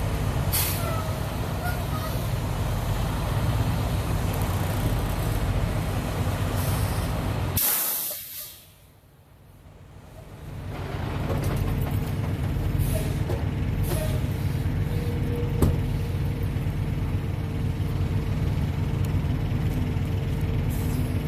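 Freightliner semi truck's diesel engine running steadily as the truck is pulled forward on its chained drive tires, with a sharp air brake hiss about seven and a half seconds in. Just after the hiss the whole sound drops away for about two seconds, then comes back.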